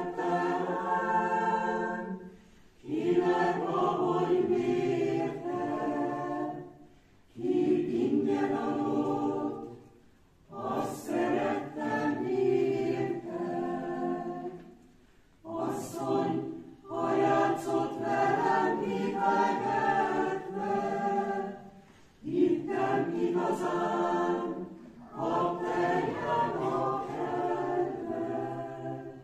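Mixed choir of men's and women's voices singing a cappella, in phrases of a few seconds broken by short breaths, with crisp consonants at the phrase starts.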